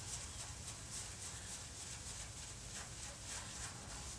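Microfiber cloth rubbed by hand over a truck's painted door panel, working in scratch-remover polishing compound to buff out fine scratches: faint swishing strokes about twice a second.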